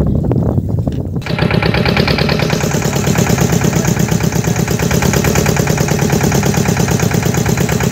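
A boat's engine runs steadily with a rapid, even chugging. About a second in it becomes abruptly louder and harsher.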